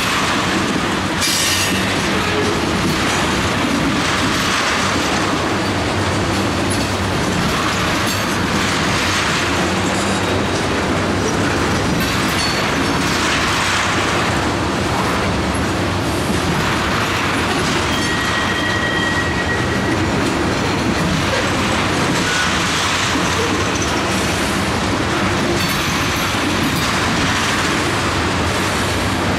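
Ethanol tank cars of a freight train rolling past: a steady rumble and clatter of steel wheels over the rails, with a brief high wheel squeal a little past the middle.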